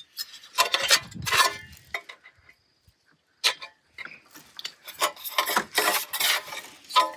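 Gutter end cap handled and fitted against a gutter section: scraping and rubbing of the pieces with a sharp click midway, after a short quiet spell, then a longer stretch of scraping near the end.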